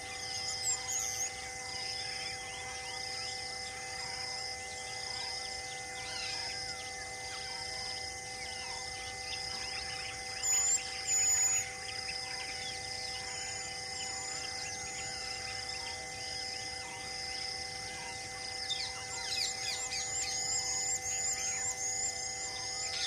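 Forest ambience: birds calling, with two short, loud, high calls about ten seconds in and a run of quick rising chirps near the end, over a regular high pulsing chirp about twice a second and a steady low hum.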